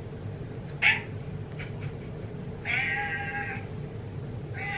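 Orange tabby cat meowing: a short call about a second in, then a longer meow around three seconds in and another starting near the end.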